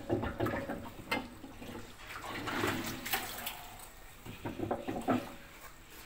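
Irregular knocks, clicks and rubbing from a hand working the drum and rubber door seal of a front-loading washing machine.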